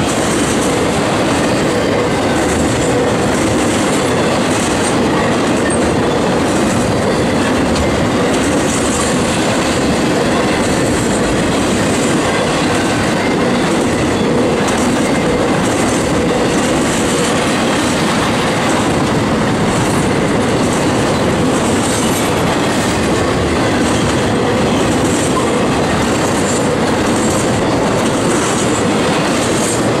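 Intermodal freight train's double-stack well cars rolling past close by: a steady, loud rumble and clatter of steel wheels on rail that does not let up.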